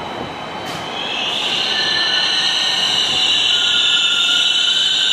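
New York City subway 1 train coming into the station over a low rumble. From about a second in, a high, steady squeal of steel wheels sets in and the sound grows louder.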